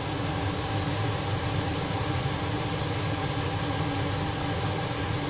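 A fan running: a steady whooshing hiss over a low hum with a few faint steady tones, unchanging throughout.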